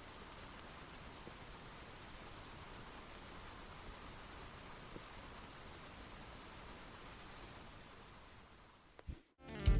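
Crickets chirping in a steady high-pitched chorus with a fast even pulse, about ten pulses a second, fading away near the end.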